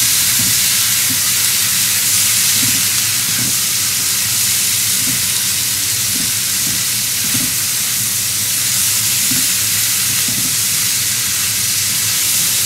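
Broccoli, cauliflower and carrots frying in hot oil in a pan with a steady sizzle.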